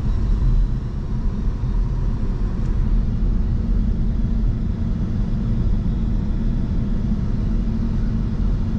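Steady low rumble of a car driving, engine and tyre noise, with no sudden events.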